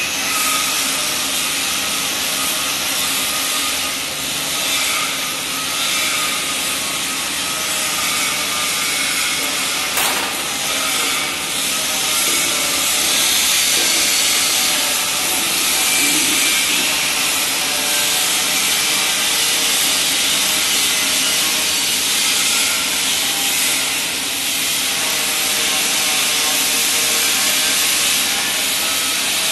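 Steady hiss and crackle from an automatic pipe-welding setup running, a column-and-boom welding head working on a pipe turning on roller stands.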